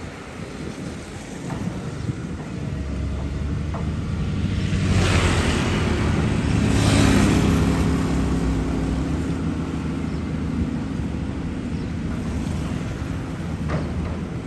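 Caterpillar 320 excavator's diesel engine running, working harder from about four seconds in, with a loud rushing swell of noise between about five and seven seconds in.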